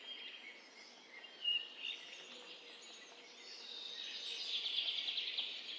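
Faint outdoor nature ambience of bird chirps. A brief call comes about one and a half seconds in, and a rapid, high trill builds from about three and a half seconds.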